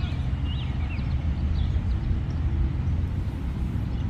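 Steady low rumble of wind buffeting the microphone, with a few short high chirps.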